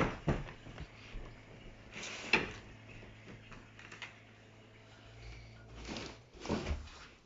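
Scattered knocks and clicks with short bursts of rustling as objects are handled and moved about, over a faint steady low hum.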